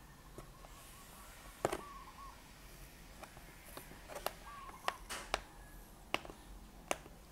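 Fingernails picking and peeling clear tape off the edge of a cardboard figure box: faint scratching with a handful of sharp little clicks and snaps, several in the second half. A faint, short wavering call repeats every two to three seconds behind it.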